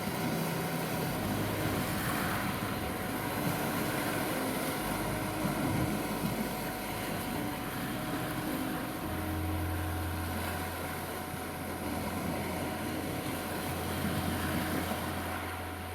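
Black Sea waves washing on a beach, under a steady 741 Hz tone and low, long-held drone notes of meditation music that change every few seconds.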